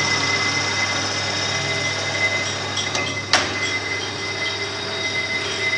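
Belt-driven collet-type screw grooving machine running steadily, with a thin high whine and light ticking, and one sharp clack about three and a half seconds in.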